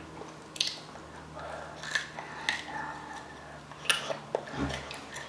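A small child chewing a mouthful of broccoli, with a few sharp crunches.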